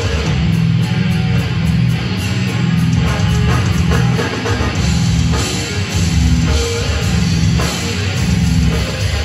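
Death metal band playing live: distorted electric guitars chug low riffs over a drum kit, loud and dense.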